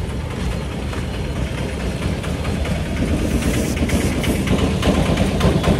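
A vehicle engine idling close by: a steady low rumble with a knocking rattle, getting a little louder about halfway through.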